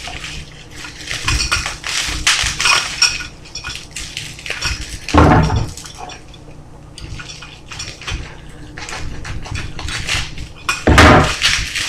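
Items being handled and unpacked from a package: a run of small clinks, knocks and rustles, with a louder knock about five seconds in and again near the end.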